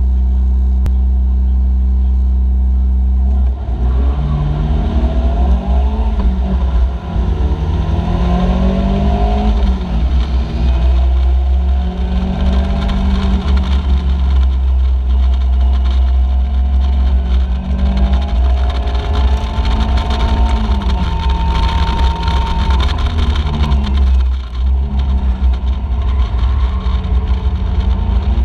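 Caterham Seven race car's engine heard from the cockpit. It is held at steady revs on the start line, then accelerates hard from about three and a half seconds in, its pitch climbing and dropping again and again as it changes gear, with other cars' engines around it.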